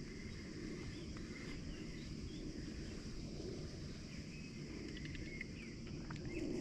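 Steady high drone of insects, with a few faint bird chirps, over a low steady rumble.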